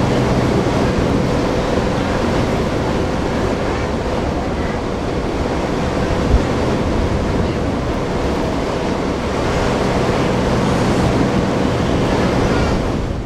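Steady wind noise buffeting the microphone over a low, even drone from a passing container ship, with one brief knock about six seconds in.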